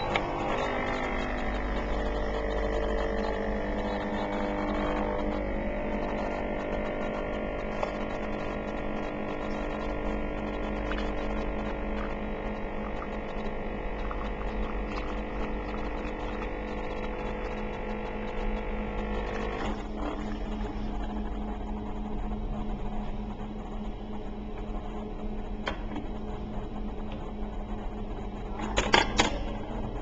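Capsule coffee machine's pump running with a steady hum while it brews a small cup, cutting off with a click about two-thirds of the way through. A few knocks near the end.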